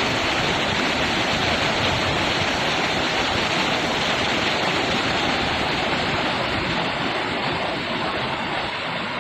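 Rushing river water: a steady, dense rush of flowing water that eases slightly near the end.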